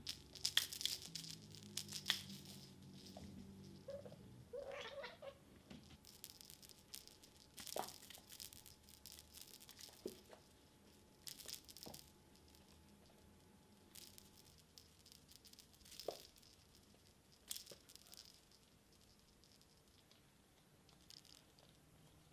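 Bengal kittens playing with a toy: scattered rustles, scratches and light taps. Soft cat vocal sounds come in the first few seconds, with a short call about five seconds in.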